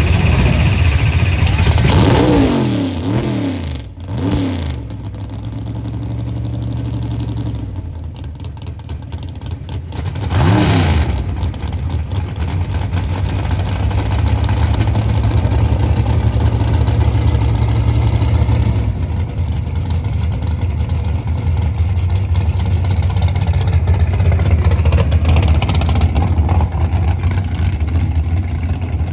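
Drag-racing car engine revving up and down a couple of seconds in, and again briefly about ten seconds in, over a steady low engine drone.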